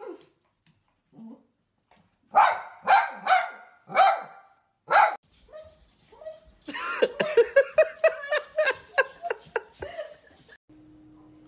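Small dog barking: five loud single barks spread over about three seconds, then, after a short pause, a quick run of sharp, high yapping barks, about four a second, for some three and a half seconds.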